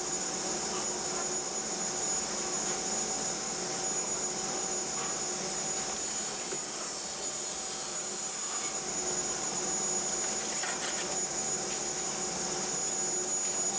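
Steady motor hum and hiss with a constant high whine, running without change. A short scratchy hiss is added from about six to nine seconds in, and there are a few faint ticks near the end.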